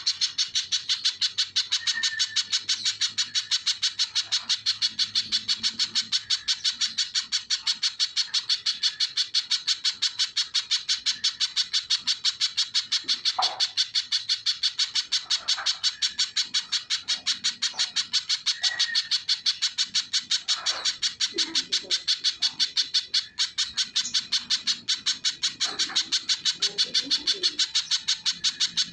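Little spiderhunter singing a rapid, even series of sharp, high notes, repeated without a break.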